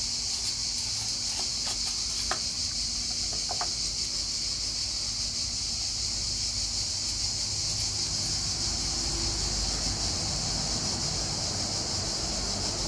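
Insects shrilling steadily in a high, even drone throughout. Within the first few seconds come a few light knife taps on a cutting board as a red onion is sliced.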